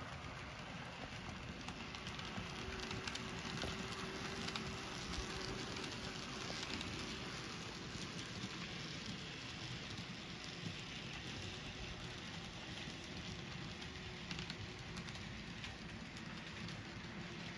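N scale model freight cars rolling along the track close by, their small wheels making a steady, fine clicking and rattling patter.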